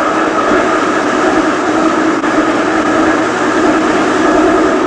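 Melbourne tram running along its track, heard from on board: a steady rumble of wheels on rail with a steady whine running through it.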